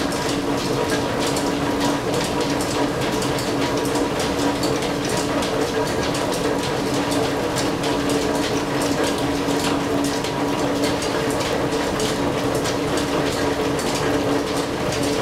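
Antique flat-belt-driven engine lathe running off a line shaft while taking a thread-cutting pass, a steady mechanical running sound with two steady hum tones and a rapid patter of light clicks.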